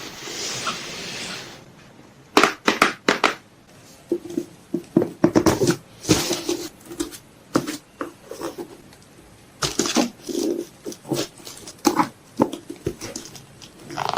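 Packing sounds: a soft rustle at first, then irregular sharp clicks, taps and crinkling of packaging as items are handled and packed.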